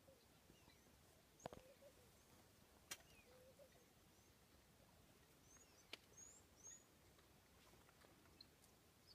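Near silence, with faint bird chirps and short warbling calls scattered through, and three sharp clicks at about 1.5, 3 and 6 seconds in.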